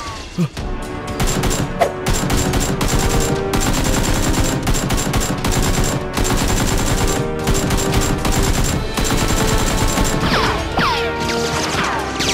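Rapid, sustained gunfire, many shots in quick succession, from about a second in until about nine seconds, over background music.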